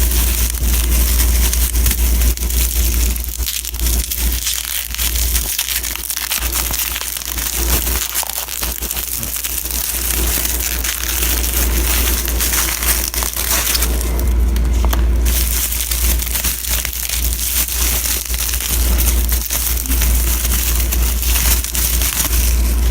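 Bubble wrap and plastic packaging crinkling and crackling as it is handled and pulled off a card by hand, with a steady low rumble underneath.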